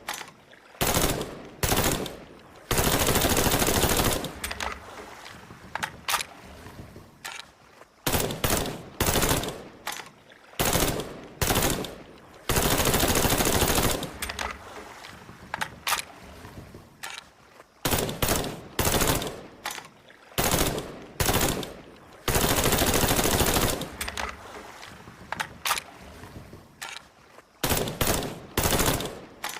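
Colt M16A1 5.56 mm rifle firing: groups of quick shots, then a sustained full-auto burst of about a second and a half with echo trailing off. The same sequence comes round three times.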